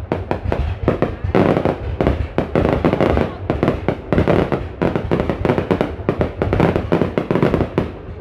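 Fireworks going off in a rapid, unbroken volley of bangs and crackles, several a second.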